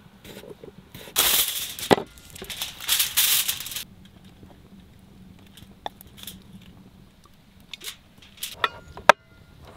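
Sheet of aluminium foil crinkling and rustling as it is handled and folded, in loud bursts about a second in and again around three seconds in. A few sharp clicks follow near the end.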